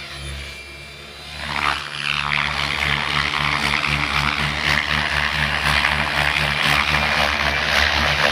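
Electric 700-size RC helicopter (Gaui X7 Formula on 685 mm SpinBlades, run from a 12-cell battery) in flight: the rotor drones steadily with a whooshing blade swish. It is quieter for the first second and a half, then louder and even for the rest.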